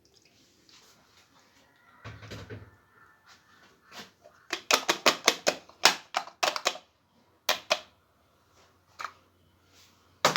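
A quick run of sharp clicks and taps, about four a second, then a few single clicks, from things being handled while a home remedy is prepared.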